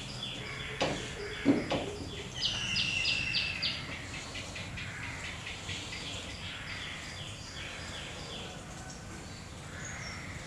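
Birds chirping over and over in the background, with a quick run of five sharp high notes a few seconds in. A few short knocks of chalk against a chalkboard come about one to two seconds in.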